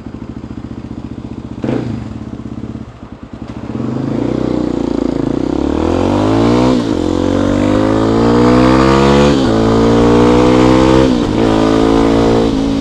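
Kawasaki D-Tracker's single-cylinder four-stroke engine idling, then pulling away and accelerating, its pitch rising in each gear and dropping at three upshifts. The engine is running on a freshly overhauled carburettor fitted with an adjustable C&M jet needle.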